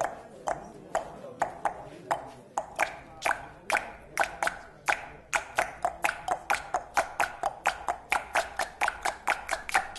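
Sharp percussive strikes, like claps or knocks, sparse at first and speeding up to a steady run of about four a second.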